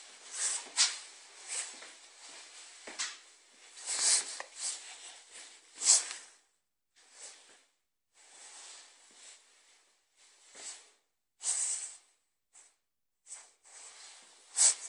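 Footsteps on wooden floors and rustling handling noise from a handheld phone, in irregular bursts with a few sharper knocks and short quiet gaps.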